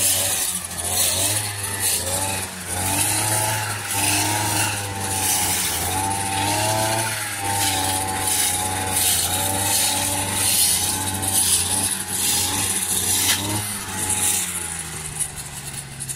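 Petrol brush cutter engine running steadily at high revs, its whine wavering up and down with the throttle as it chops dried grass into chaff.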